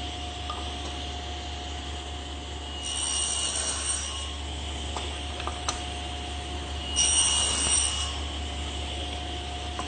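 Table saw running steadily, its blade cutting through wooden rail ends twice, each pass about a second long, making the shoulder cuts for tenons.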